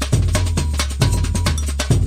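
Background music with a steady percussive beat over a heavy bass line.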